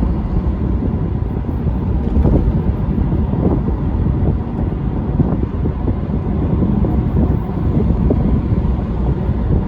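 Strong wind buffeting the microphone: a loud, uneven low rumble with no music or voice.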